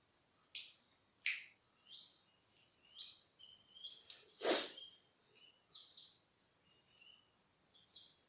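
A run of short, high-pitched chirps, a dozen or so at uneven intervals, with one louder sharp noisy burst about halfway through.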